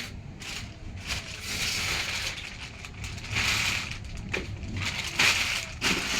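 Packaging being handled during unboxing: irregular crinkling and rustling in short bursts, loudest about halfway through and again about five seconds in.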